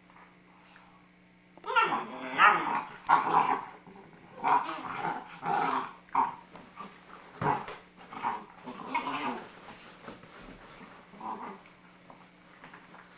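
Great Dane puppies growling at each other while play-fighting. A run of loud growls starts about two seconds in, dies down after about ten seconds, and a few faint growls follow.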